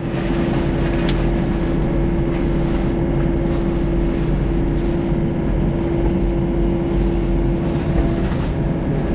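Volvo EC35C mini excavator running with a hydraulic RUT brush mower head working in brush: a steady machine drone with a constant hum.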